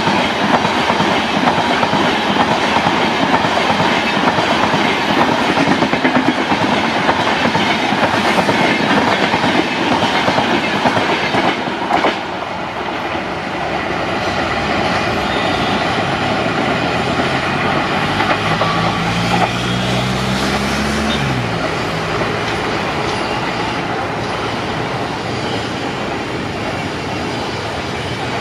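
Passenger coaches of an express train rolling past on the track: steady wheel-and-rail rumble with clickety-clack over rail joints, a sharp click about twelve seconds in, after which the sound eases as the train draws away. A low rising hum runs for a few seconds later on, then stops abruptly.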